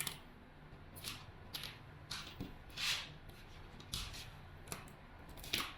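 Fiber optic connectors and patch cable being handled and plugged in: a series of short, light scratchy clicks and rustles, about eight spread over several seconds.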